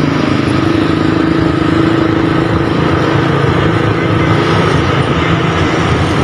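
Busy road traffic: truck and motorcycle engines running steadily, with a constant engine hum.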